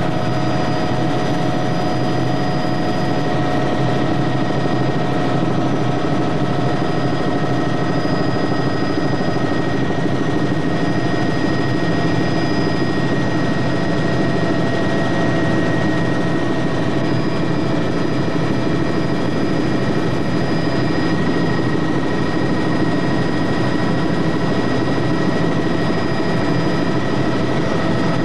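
Helicopter cabin noise in flight: a steady engine and rotor drone with several constant high whining tones over it, heard from inside the cabin.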